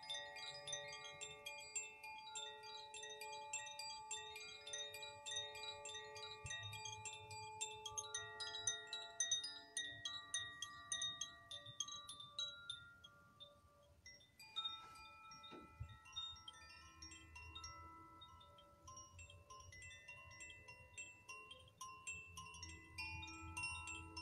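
Metal chimes ringing: many tones of different pitches overlapping, with a fast tinkling on top. Just past the middle the ringing thins out and there is a single soft knock, then the chimes start again on a new set of pitches.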